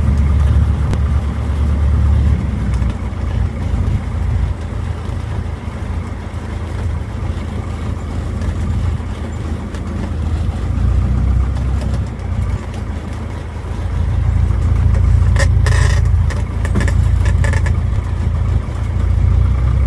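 Cessna 150's Continental O-200 four-cylinder engine running at low power, a steady low drone, as the plane rolls out after landing. A few short clicks about three-quarters of the way through.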